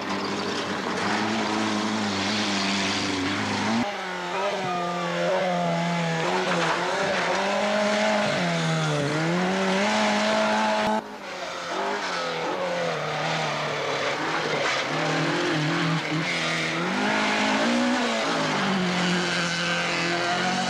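Rally car engines revved hard on a gravel stage, three cars in turn, the pitch repeatedly climbing and dropping with each gear change and lift, with abrupt switches from one car to the next about four and eleven seconds in.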